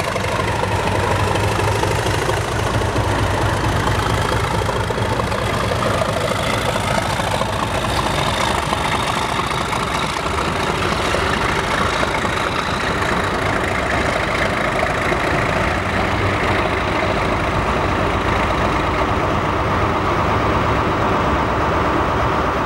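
Class 37 diesel locomotive's English Electric V12 engine running under power as it pulls away, a steady loud drone with a thin whistle held above it. The level stays even throughout.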